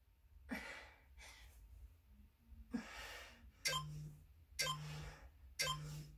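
Hard breaths from a person straining through back-extension lifts on a mat, then an interval timer's countdown: three short low beeps about a second apart in the second half, marking the last seconds of the work interval.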